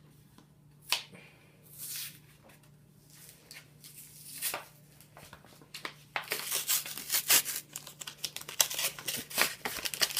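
Packaging of a Pokémon card booster pack being torn open and crinkled: a few separate crackles at first, then from about six seconds in a dense run of crinkling and tearing.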